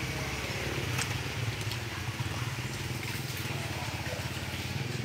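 A small engine running steadily, a low rumble, with a few faint clicks over it.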